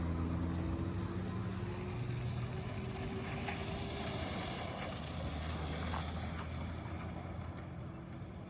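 Diesel semi-truck engine pulling away under load, its note slowly rising, then growing fainter near the end.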